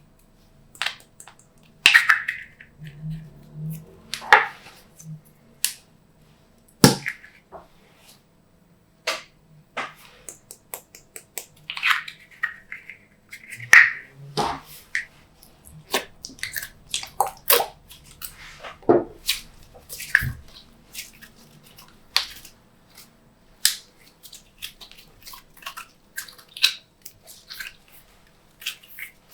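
Glossy slime being worked and mixed by hand, making irregular sticky clicks, pops and short squelches.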